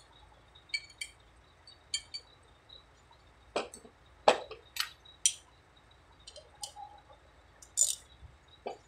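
Small metal parts and screws clinking and tapping as they are handled and fitted to a truck air compressor: irregular sharp clicks, the loudest about four and five seconds in.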